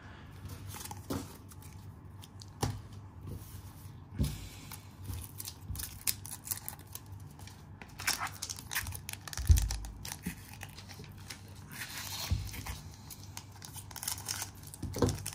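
Handling of Pokémon TCG booster packs and cards: foil pack wrappers crinkling, with scattered light taps and clicks as cards and scissors are picked up and set down. A low thump about nine and a half seconds in is the loudest sound.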